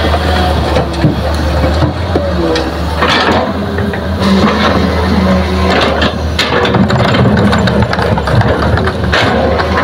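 Heavy earthmoving diesel engine running steadily, with several sharp knocks and rattles of machinery working.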